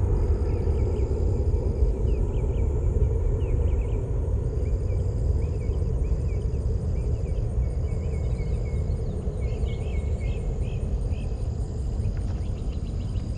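Steady low outdoor rumble, with insects buzzing on a steady high note and short high chirps scattered over it, most of them in the second half.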